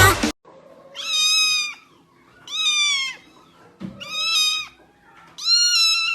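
A cat meowing four times, evenly spaced about a second and a half apart, each meow a steady high call lasting under a second. A louder stretch of other sound cuts off right at the start.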